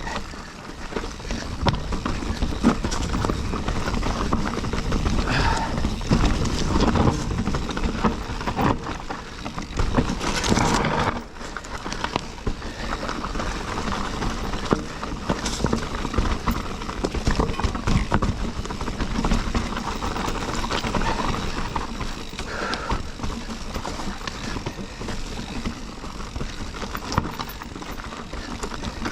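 Mountain bike being ridden over rocky singletrack: steady low rumble of tyres on the trail with constant knocks and clatter as the wheels hit rocks and the bike and camera mount rattle.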